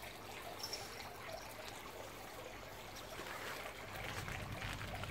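Faint, steady outdoor background hiss with a few soft ticks; a low rumble comes in about four seconds in.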